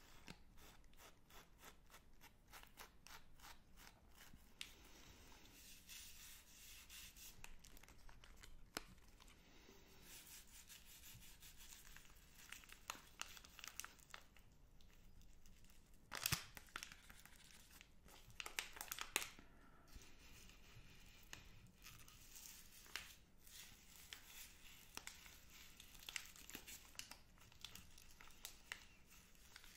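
Plastic wrappers of Magnum chocolate bars crinkled and rubbed between the fingers close to the microphone: a continuous run of soft crackles and ticks, louder in a few clusters around the middle and near the end.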